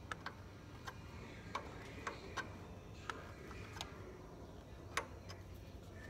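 Faint, irregular metallic clicks and taps, about ten in all, of a hand tool working a battery terminal bolt as the cable is disconnected.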